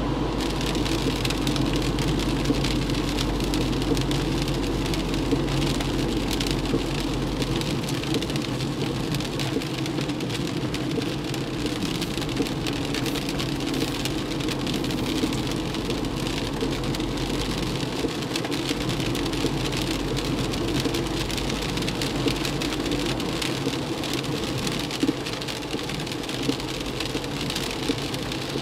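Heavy rain pattering on a car's windscreen and body while driving on a soaked road, heard from inside the car, over a steady hum of tyres and engine.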